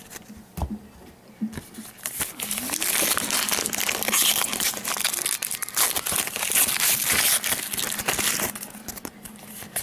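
A trading-card pack wrapper being torn open and crinkled in the hands: a dense, crackly rustle lasting several seconds, dying away near the end.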